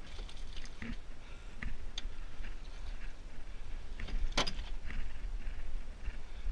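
Scattered knocks and rattles of an aluminum canoe hull and gear as a deer carcass is shifted inside it, with one sharp knock about four seconds in, over a low rumble.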